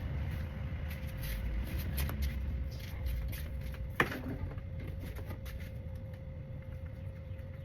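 Scattered light clicks and knocks, with one sharp clink about four seconds in, over a steady low hum.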